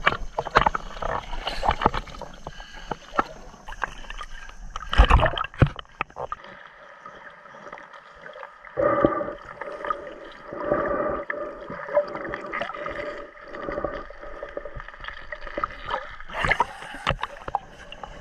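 Sea water splashing and sloshing around a snorkeler at the surface, with a loud splash about five seconds in as the camera goes under. Then a muffled underwater stretch of gurgling with a steady hum, and splashing again near the end as it breaks the surface.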